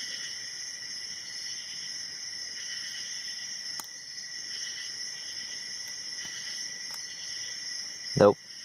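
Steady, high-pitched insect chirring in the background, with a couple of faint clicks from a hook pick working the pin stack of a brass padlock.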